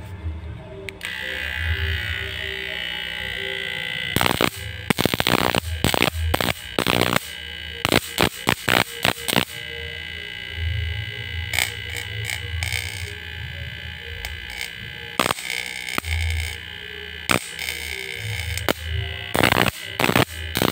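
Electrical arcing from a wire tapped against a steel plate, shorting the supply to test its protection circuit: bursts of sharp spark crackles come in clusters. Between them a low electrical hum swells and fades, and a steady high buzzing tone runs throughout.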